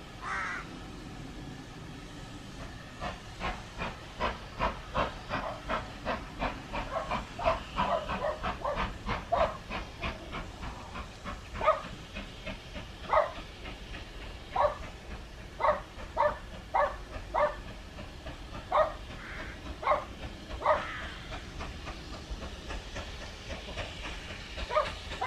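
Steam locomotive approaching from a distance, its exhaust beats heard as a quick, even chuffing. Louder, irregular sharp animal calls come through off and on later.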